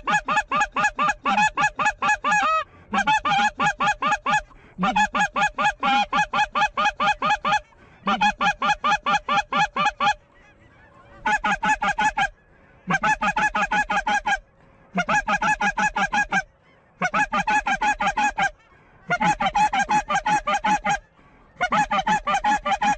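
Goose honking in rapid runs of clucks, about six a second, in bursts of one to three seconds with short pauses between.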